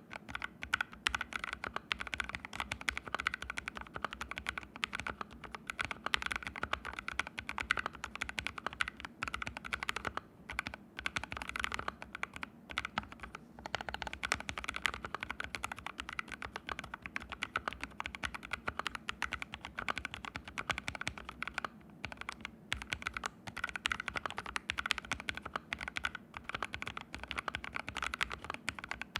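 Continuous fast typing on an ABKO AR61 mechanical keyboard with fully lubed Haimu Sea Salt switches and no case foam or pad, sitting directly on a floor: a dense stream of key clacks, broken by a few short pauses.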